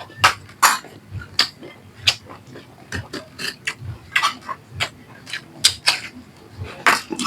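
Close-miked eating sounds: open-mouthed chewing with sharp, irregular smacks and crunches, several each second.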